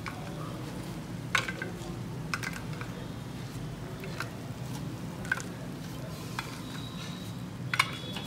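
Crisp fried samosas being picked up and set down on a serving plate: scattered light clicks and taps, about seven in all, over a steady low hum.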